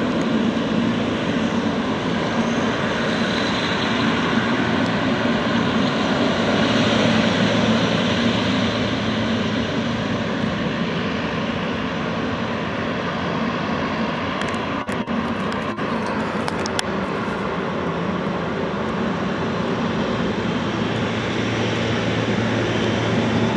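Boeing 777's twin jet engines running steadily at low taxi power as the airliner taxis and turns on the runway.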